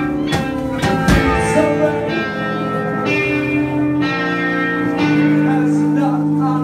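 Live band playing amplified rock music: electric guitars and drums, with long held notes that change about once a second and a few sharp drum hits near the start.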